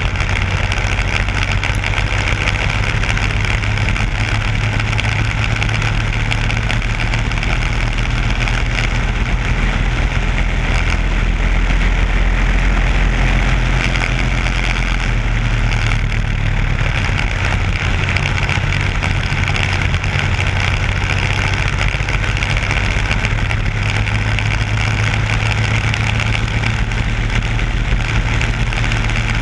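Onboard sound of a racing kart's Briggs & Stratton Animal single-cylinder four-stroke engine running at race speed, a loud steady drone that swells slightly about halfway through.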